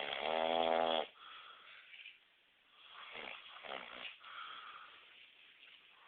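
A man snoring loud: one long pitched snore in the first second, then softer snoring breaths about three and four seconds in.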